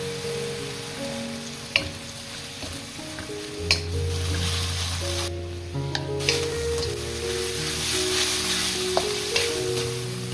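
Seaweed stems sizzling in oil as they are stir-fried in a wok, with a wooden spatula knocking sharply against the pan several times. Background music plays underneath.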